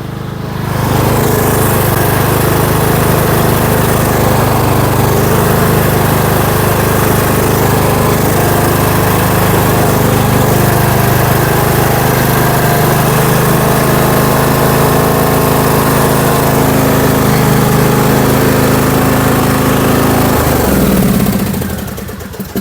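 Murray riding lawn mower's engine running steadily under load while towing an engineless car on a tow strap, then winding down and stopping near the end.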